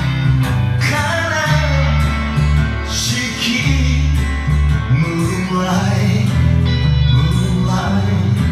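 A rock band playing, with a bass line, electric guitar and drums. There are cymbal crashes about a second in and again around three seconds.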